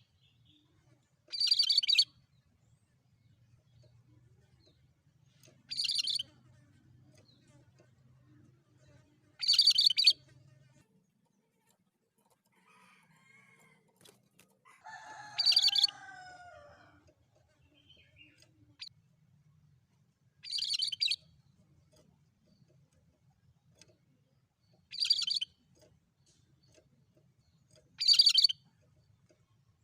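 Cucak kerinci songbird singing in short high phrases, each well under a second long, seven times at intervals of about four to five seconds. Around the middle, a lower, falling call with a deeper tone overlaps one of the phrases.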